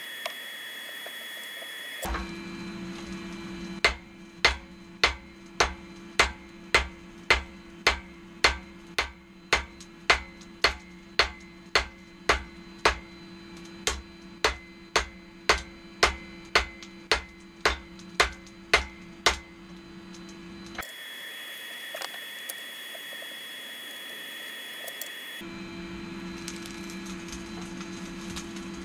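Hand hammer striking glowing knife steel on an anvil in a steady rhythm, a little under two blows a second, about two dozen blows in a row that stop roughly two-thirds of the way through. A steady hum runs underneath.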